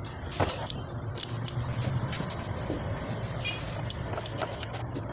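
Scattered metallic clicks and clinks of a wrench working on the cylinder head nuts of a Bajaj Discover motorcycle engine, over a low steady hum.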